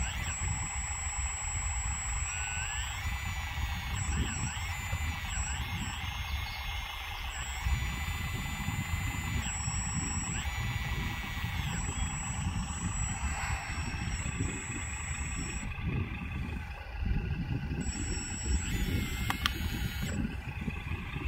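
Hydraulic pump of a 1/16 scale RC hydraulic excavator whining in repeated spells of one to three seconds, rising in pitch at the start of each spell and then holding steady, as the boom, arm and bucket are worked to dig and load soil. A steady low rumble runs underneath.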